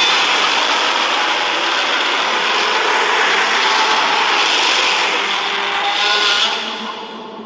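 Godzilla's roar from the 2014 Legendary film, a synthesized creature sound effect: one long, harsh, grating roar that holds steady for about six seconds, then fades near the end.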